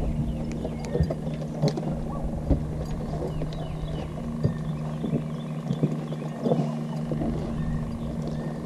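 Boat motor humming steadily while trolling, with scattered sharp knocks and clicks on the boat.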